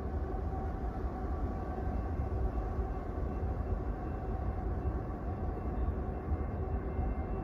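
CSX diesel freight train running, a steady low rumble with a faint steady whine above it.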